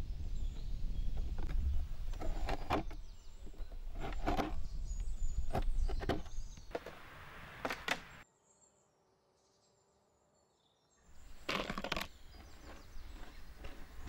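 Hard walnut-and-milk sugar brittle snapping and crackling in short clusters of sharp cracks as the baked slab is broken apart by hand, over a low rumble. The sound drops to near silence for about three seconds in the middle, then a last burst of cracking follows.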